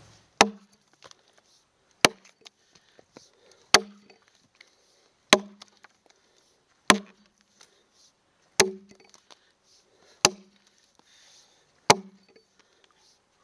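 Jersey-pattern axe chopping into a log to buck it: eight strokes in a steady rhythm, about one every second and a half, each a sharp chop with a brief low ring after it, with small ticks between strokes.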